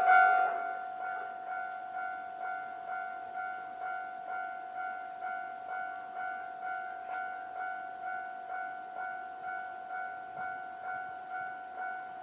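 Japanese level-crossing warning alarm ringing: a single electronic bell tone repeating evenly a little under twice a second. It drops in loudness about half a second in, then carries on steadily.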